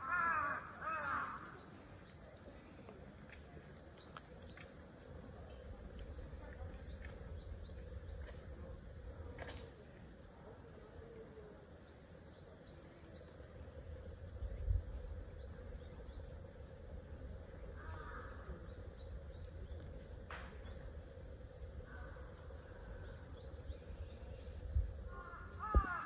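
Crows cawing: a run of harsh caws, each falling in pitch, at the start and again near the end, with a few faint caws in between. Underneath is a steady low rumble, with two dull thumps, about fifteen seconds in and near the end.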